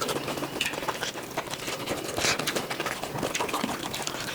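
Close-up eating sounds: chewing and small wet clicks and smacks of a mouth working on boiled buffalo innards, irregular and closely spaced.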